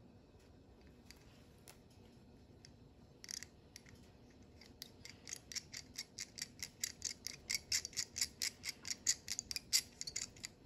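Hand pin vise drilling a small hole in a tiny model-car part: the fine twist bit scrapes as it cuts, making a run of short, sharp clicks several a second, with a few scattered clicks before it.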